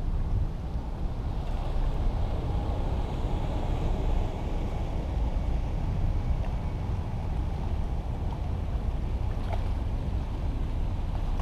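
Wind buffeting the microphone: a steady low rumble with no clear events.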